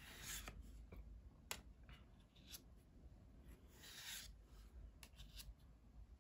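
Pokémon trading cards being slid one at a time from the front of a hand-held stack to the back: faint swishes of card rubbing on card, with a few light ticks.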